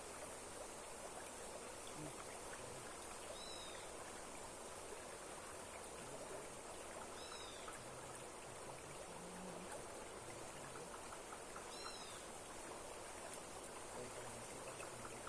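Steady rush of a strongly flowing waterfall. A bird gives a short, high, arched two-part call three times, about four seconds apart.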